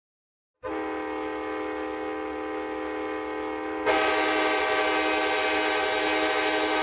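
Locomotive air horn blowing one long chord of several notes. It starts about half a second in and turns louder and harsher about four seconds in.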